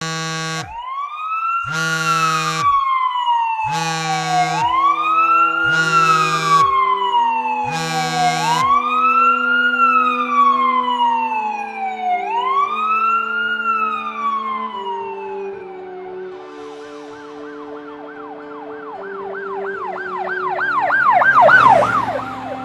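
Police-style siren wailing, rising and falling about every four seconds, with five short loud blasts in the first nine seconds and held musical notes beneath. About sixteen seconds in it switches to a fast yelp that swells loud and cuts off near the end.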